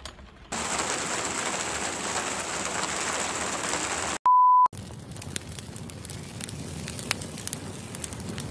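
Steady hiss of rain falling on the ground. A little past the middle it is cut by one short, high, pure beep, and after that the hiss is softer, with scattered sharp drip-like ticks.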